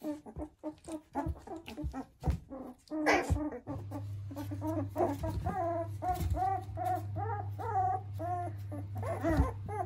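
Two-week-old Border Collie puppies squeaking and whining over and over, short high calls that rise and fall, about two a second, with scattered light knocks from the first few seconds of play. A steady low hum comes in about four seconds in.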